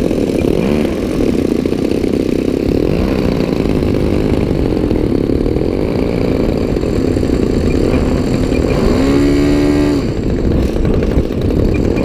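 DLE 35RA two-stroke gasoline engine on a Phoenix Models Corsair RC warbird running on the ground before takeoff. About nine seconds in it revs up, its pitch rising and then holding.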